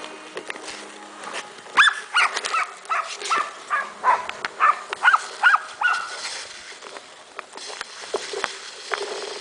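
A dog giving a quick series of about ten short, high yelping barks, starting about two seconds in and stopping about six seconds in.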